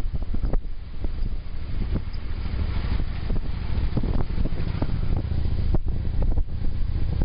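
Harley-Davidson V-twin engine running steadily at road speed, a low rumble under heavy wind buffeting on the microphone, with frequent short pops and gusts.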